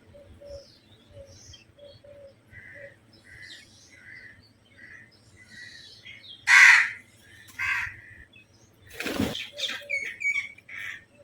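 Crows cawing over the chirping of small birds: two loud harsh caws about two-thirds of the way through, then a cluster of louder calls near the end.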